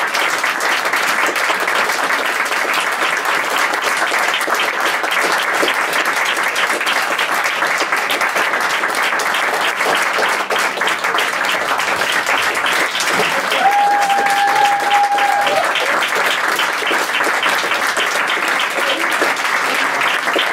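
Theatre audience applauding steadily as the cast takes its bows, with one steady high tone about two seconds long a little past the middle.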